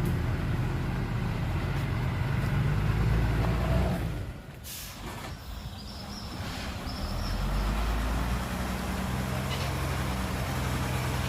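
Heavy dump truck's diesel engine running, then dropping off about four seconds in, with a short hiss of air from the air brakes. A brief high squeal follows, and the engine picks up again.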